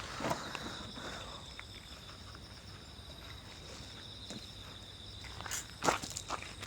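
Insects trilling steadily in high, even tones, with a few short knocks and scuffs, the loudest about six seconds in.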